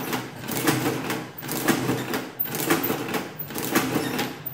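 Victor manual adding machine worked by its hand crank, pulled over and over at about one stroke a second. Each stroke is a clattering run of gear and ratchet clicks as the machine adds the entered number again, doing multiplication by repeated addition.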